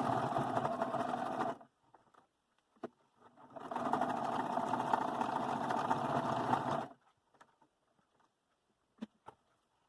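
Sewing machine stitching a zipper onto fabric in two runs: it stops about a second and a half in, starts again after a pause of about two seconds and runs for about three seconds more, with a few faint clicks in the pauses.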